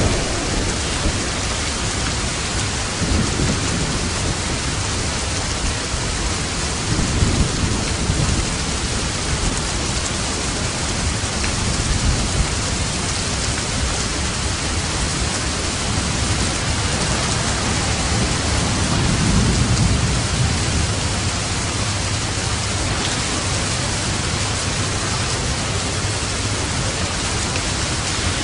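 Steady rain falling in an even hiss, with low rumbles of distant thunder rolling in three times.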